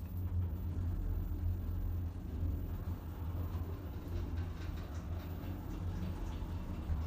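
Elevator car travelling between floors: a steady low rumble and hum of the lift in motion, with a few faint ticks.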